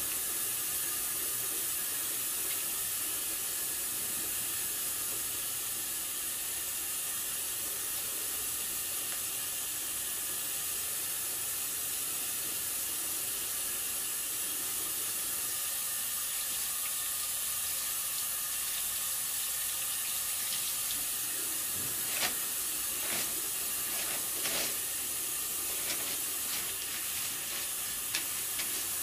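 Tap water running steadily into a sink during handwashing. In the last several seconds a few short crackles come as paper towels are pulled and handled.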